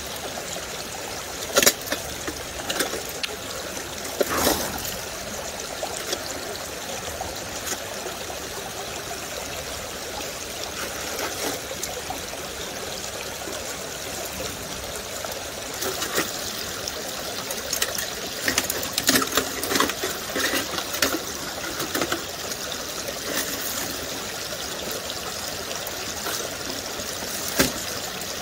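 Creek water running and pouring steadily while a sluice box is cleaned out into a bucket, broken by a few sharp splashes and knocks, most of them in a cluster past the middle.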